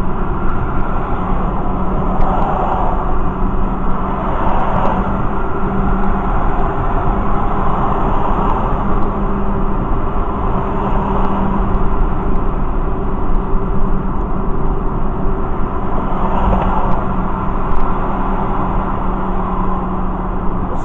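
Car cruising at highway speed, heard from inside the cabin: steady road and tyre rumble with a constant engine drone.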